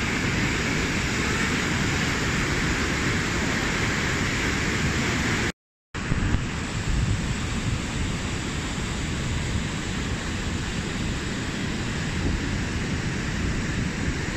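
Merced River whitewater rushing over boulders: a steady, loud roar of water with a deep rumble underneath. It breaks off for a split second about five and a half seconds in, then carries on.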